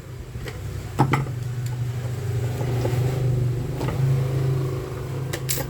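A small electric motor hums steadily. It starts with a click about a second in and eases off near the end, where there is another click.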